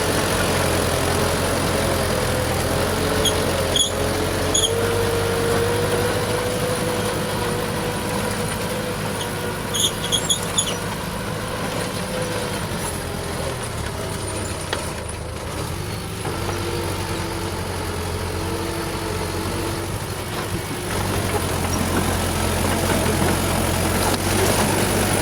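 Old Furukawa bulldozer's diesel engine running steadily, with a whine that rises and falls and a few short metallic clinks a few seconds in and again about ten seconds in. The low engine note drops back about halfway through and picks up again near the end.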